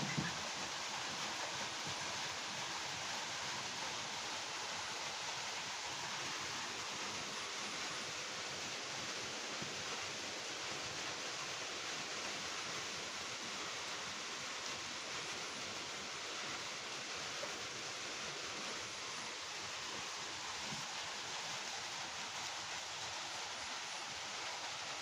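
Steady, even background hiss with no distinct events, and one short knock right at the start.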